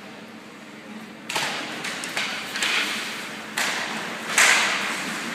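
Ice hockey play: a sharp knock about a second in, then more knocks with scraping hiss from sticks, puck and skates on the ice. The loudest knock comes near the end.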